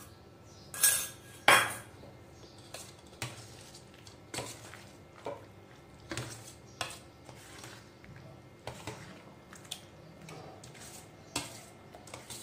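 Stainless steel bowl and spoon clinking: two loud clanks of steel vessels knocking together about a second and a half in, then a metal spoon stirring curd into mashed pumpkin, with scattered clinks and scrapes against the bowl.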